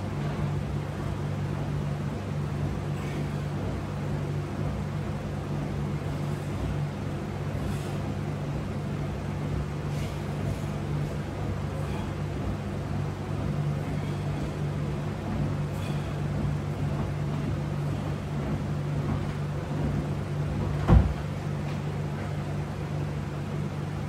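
Window air conditioner running with a steady low hum. A single knock sounds about 21 seconds in, with a few faint clicks before it.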